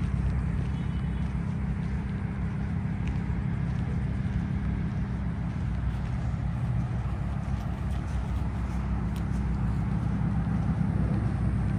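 Ferrari SF90 Spider's twin-turbo V8 idling, a steady low rumble.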